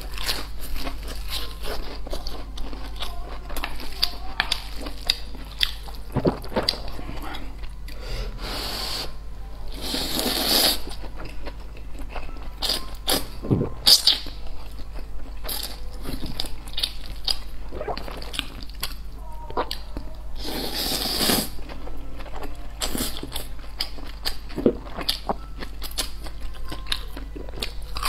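Close-miked eating sounds: crunchy bites into fried food and wet chewing, broken by several longer noodle slurps, the strongest about ten and twenty-one seconds in.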